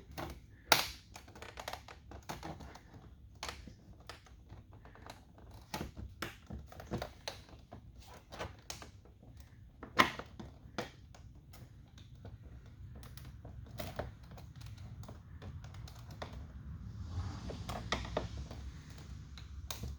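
Irregular plastic clicks and taps from a trim clip tool prying at a tight plastic trim piece in a truck door panel, worked slowly so it won't break. Two sharper, louder clicks stand out, about a second in and about ten seconds in.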